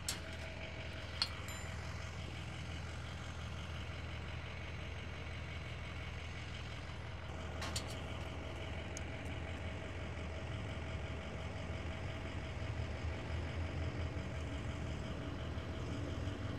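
A truck engine idling steadily with a low hum, with a couple of sharp clicks, one about a second in and another about halfway through.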